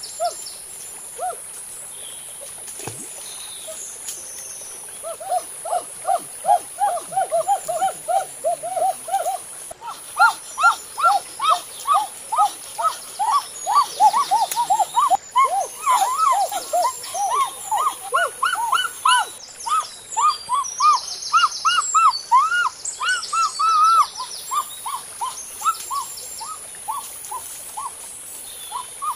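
Bird calling in a long series of short whistled notes, each rising and falling, a few per second. It starts a few seconds in, climbs higher and comes thicker through the middle, and stops a few seconds before the end, over a steady high hiss.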